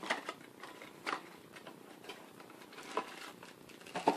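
Hands handling plastic packaging, with irregular rustling and crinkling and a few louder crackles near the start, about a second in, about three seconds in and at the end.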